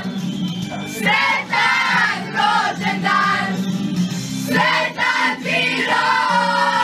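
Several voices singing a song together over music.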